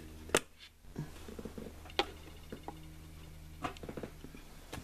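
Sharp clicks and scattered light ticking from the plastic base of a talking baseball figure as it is handled, three clicks standing out, over a faint steady low hum.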